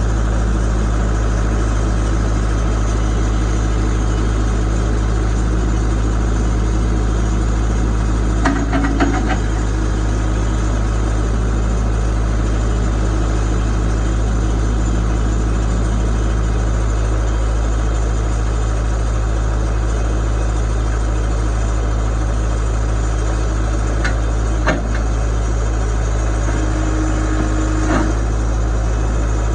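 New Holland 555E backhoe loader's diesel engine idling steadily, with a few short clicks or knocks, about nine seconds in and twice near the end.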